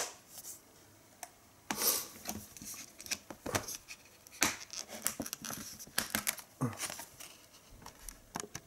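Scattered clicks and short rustling, scraping swishes of things being handled by hand, at an uneven pace with quiet gaps between them.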